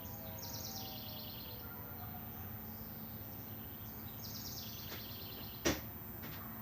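A songbird sings two short trilled phrases, each about a second long, over steady background noise. Faint falling tones from a distant tornado siren winding down fade out in the first two seconds. A single sharp click near the end is the loudest sound.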